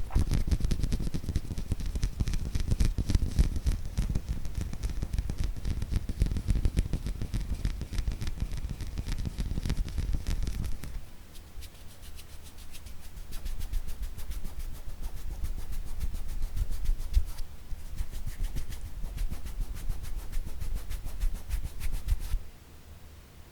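Rapid, dense ASMR hand tapping with fingertips and nails. It is heavier, with deep thuds, until about halfway through, then lighter and brighter, and it stops abruptly near the end.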